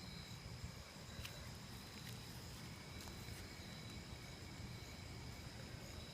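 Faint outdoor night-time ambience: crickets or other insects trilling steadily in high, thin tones over a low rumble, with a few faint clicks.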